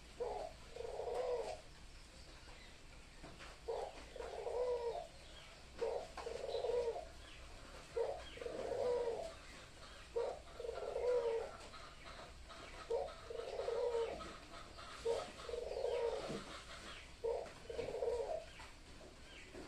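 Pet dove cooing over and over: eight two-part coos, each a short note followed by a longer one, about every two seconds.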